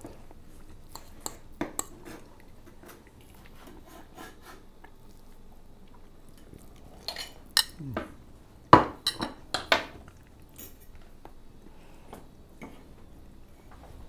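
Cutlery clinking and knocking: a knife and fork cutting meatloaf on a wooden cutting board and tapping a plate as a slice is served. The clinks are scattered, with a cluster of louder, sharper clinks about seven to ten seconds in.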